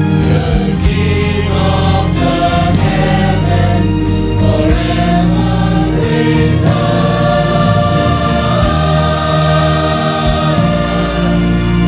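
A choir singing a Christian song with musical accompaniment, steady and full throughout.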